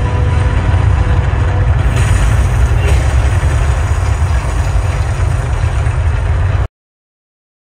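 Deep, rumbling ambient electronic soundscape of an immersive art installation, heavy in the bass and steady throughout, cutting off abruptly to silence near the end.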